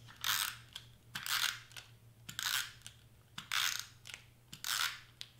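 A Tombow tape glue runner is drawn across cardstock in five quick strokes, about one a second, each a short scraping sound. The tape is sticking in the holder and not feeding out cleanly.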